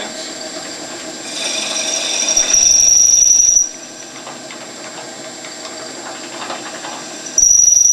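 Wood lathe spinning a turned tool handle while a 7/16-inch drill bit in a tailstock chuck bores into its end. A loud, high-pitched whine from the bit cutting builds over the first few seconds, cuts off suddenly about halfway, and starts again sharply near the end over the steady hum of the lathe.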